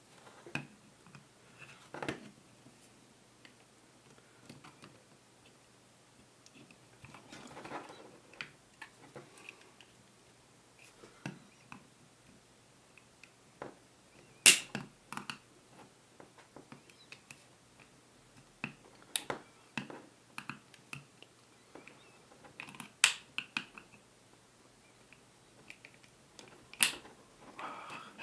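Clicks and small handling noises of a spring airsoft Walther PPK/S pistol's plastic and metal parts being worked apart by hand. Four sharp clicks stand out, the loudest about halfway through.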